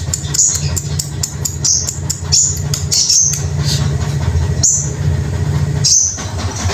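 A songbird giving short, high, repeated chirping calls about every half second over a steady low hum.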